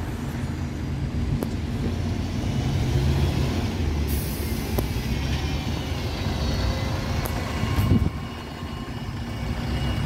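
Alexander Dennis Enviro400 MMC Smart Hybrid double-decker bus running at low speed as it makes a U-turn and passes close by, its engine a steady low rumble. A short hiss of air comes about four seconds in, and a low thump near eight seconds in.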